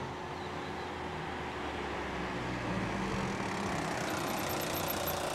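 Low, steady hum of a car engine running at idle, with outdoor road noise.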